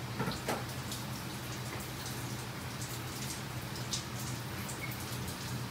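Kitchen tap running into the sink as mushrooms are rinsed under it by hand: a steady splashing hiss, with a couple of light knocks near the start and another about four seconds in, over a steady low hum.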